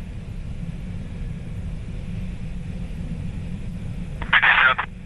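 Soyuz-2.1b rocket's first-stage engines in flight, a steady low rumble. A half-second burst of sound in the voice range comes about four seconds in.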